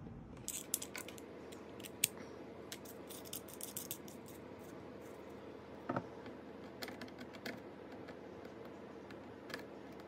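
Small Phillips screwdriver and metal tool clicking and scraping against the screws and metal bracket of a laptop hard drive, in faint, scattered ticks. The sharpest clicks come about two seconds in and about six seconds in.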